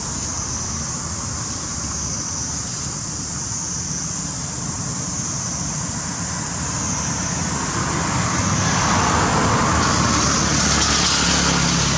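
Steady outdoor background noise: a high hiss that wavers about once a second over a low rumble, growing louder about eight seconds in.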